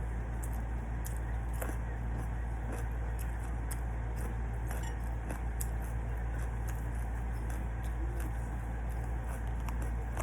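Eating sounds: scattered small clicks and crackles of chewing and of utensils on dishes, over a steady low hum.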